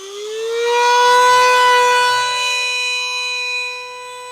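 A siren winding up, its pitch rising over about a second and a half to a steady high tone, then holding. It swells in loudness and eases off a little near the end.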